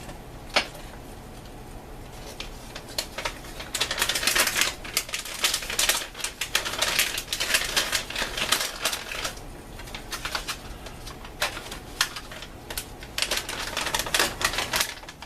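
Plastic MRE packaging crinkling and crackling in irregular bursts as it is handled, with one sharp click near the start; the rustling grows busier about four seconds in.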